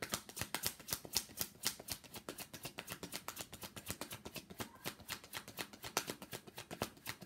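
A deck of tarot cards being shuffled by hand: a quick, steady run of card clicks, about eight or nine a second.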